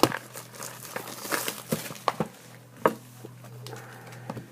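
Trading-card box and foil pack wrappers being handled: crinkling about a second and a half in, with several sharp taps and clicks.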